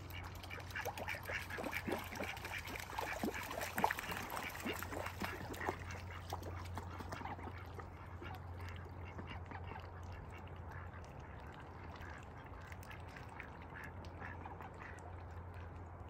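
A flock of domestic ducks quacking as they paddle through shallow floodwater. Many short quacks overlap in the first half, then thin out to scattered calls.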